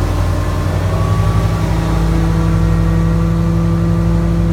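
Powerboat engine running under way, heard from the helm cabin, its pitch stepping up slightly about a second in as the engine picks up speed.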